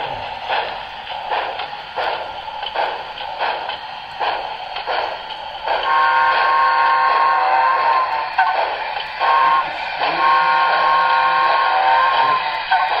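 Sound-equipped HO scale model locomotive's onboard sound: rhythmic chuffing about two beats a second, then, about six seconds in, a chime whistle blown in a few long blasts with short breaks.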